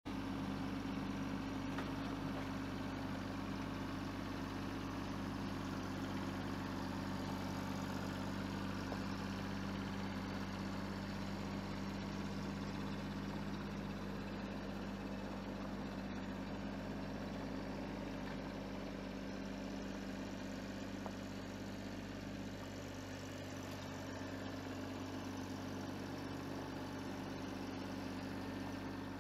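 Farmtrac 26H compact tractor's diesel engine running steadily while the tractor moves a boat trailer, with an even, unchanging pitch.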